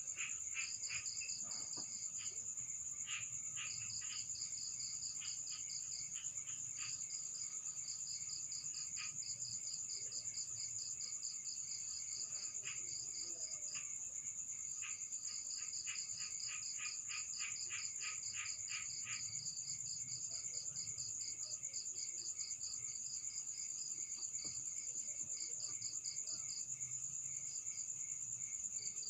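Insects chirping in rapid pulsed trills over a steady high-pitched buzz.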